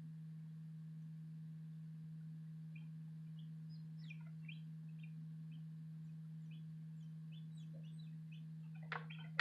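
Newly hatched Light Brahma chicks peeping inside an egg incubator: faint short chirps from about three seconds in, growing louder and busier near the end. Under them runs a steady low hum, the incubator's fan or motor.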